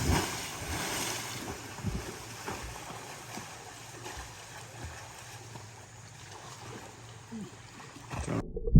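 A loud splash right at the start, then steady rushing river water. Near the end the hiss cuts off suddenly, leaving only low, muffled rumbling.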